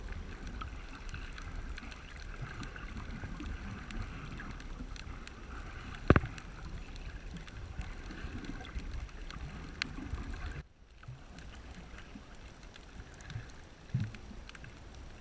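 Water moving and lapping around a kayak, with small scattered clicks and one sharp knock about six seconds in. The level drops abruptly just before eleven seconds, and a softer knock follows near the end.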